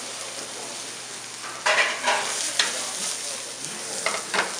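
Green vegetable sticks sizzling in hot oil in a frying pan, with a few short, louder scrapes of the vegetables being moved around the pan about halfway through and again near the end.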